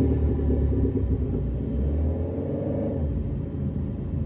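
Car running, heard from inside the cabin: a steady low rumble, with a slight rise and fall in pitch around the middle.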